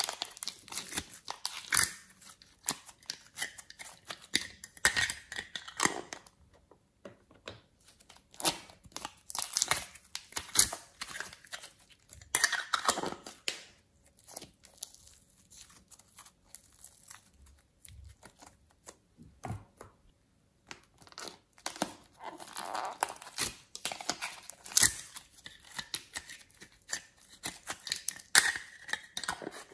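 Slime and soft clay being peeled out of thin plastic puzzle-piece containers and squeezed by hand: sticky tearing and crackling of the plastic trays in irregular bursts, with a quieter stretch in the middle.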